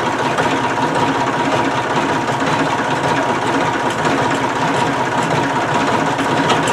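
Forklift engine idling steadily, with a thin, even whine running through it.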